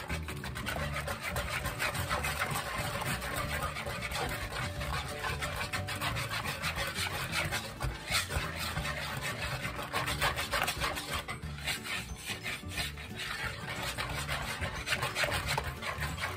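Cornbread batter being stirred and scraped by hand around a large old wooden bowl: continuous scraping and rubbing in quick, irregular strokes.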